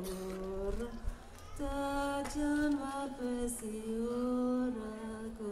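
A woman singing a Skolt Sámi leu'dd, a traditional chanted song: one voice in held notes that step between a few close pitches, with short breaks between phrases.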